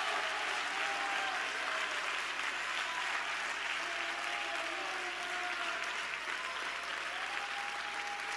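Church congregation applauding steadily, fading a little towards the end.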